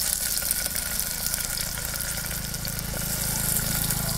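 Sliced onions sizzling in hot oil in an aluminium pressure cooker, over the steady low rush of a portable gas-cylinder stove's burner.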